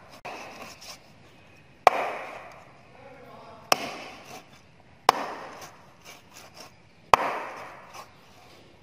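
Cleaver chopping raw chicken on a round wooden chopping block: four sharp chops, one every one and a half to two seconds, each followed by a short decaying tail.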